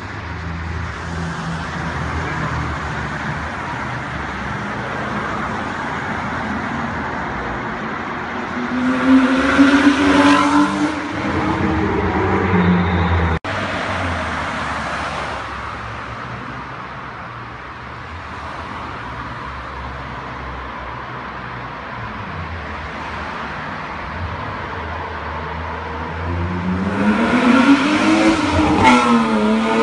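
BMW 325i E36's inline-six engine in a tunnel, running at a steady drone and then revving up hard twice, about nine seconds in and again near the end, where the pitch climbs, drops at a gear change and climbs again. The sound cuts out for an instant around the middle.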